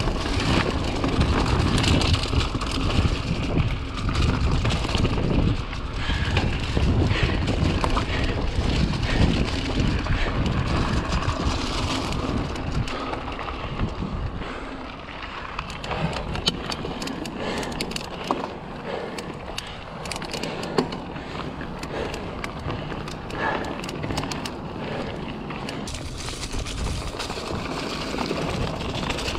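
Riding noise from a 2018 Giant Stance 2 mountain bike on a dirt trail: wind buffeting the microphone over tyre noise and the bike rattling. About halfway through the wind rumble drops, and quick clicks and rattles from the bike over rough ground stand out.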